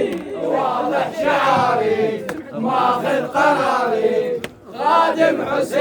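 Crowd of men chanting a latmiya refrain together in unison, many voices singing the same line.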